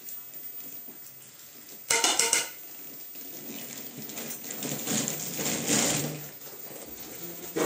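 A short, loud clatter of metal about two seconds in, a small metal cup knocking against a round metal tray of rice, followed by a longer, softer rustle.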